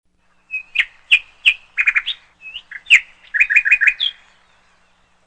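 A bird chirping in short, sharp calls, a few spaced apart and then a quick run of four or five, stopping about four seconds in.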